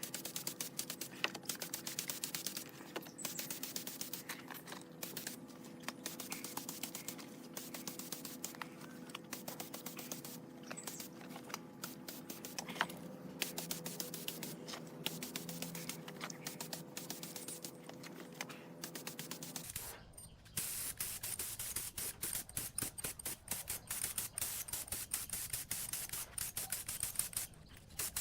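Dense, rapid clicking and scraping of small hand work, over a steady hum. About two-thirds through, the hum stops and the clicking becomes hissier.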